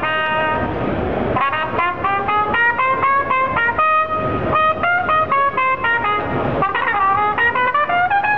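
Toyota Partner Robot playing a real trumpet through its artificial lips and fingers: a lively melody of quick short notes, with a longer held note near the start and another about four seconds in.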